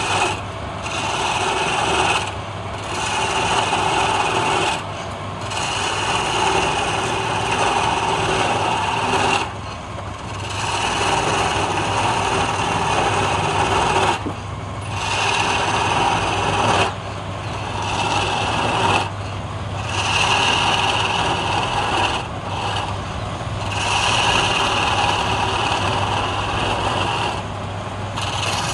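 Flat scraping tool cutting a wooden blank spinning on a wood lathe: a steady rasping scrape, broken by short pauses every few seconds as the tool comes off the wood.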